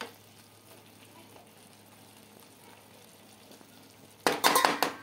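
Brinjal and potato curry cooking on a low gas flame, with a faint, steady sizzle. About four seconds in, a spatula scrapes and clatters loudly against the pan as the vegetables are stirred.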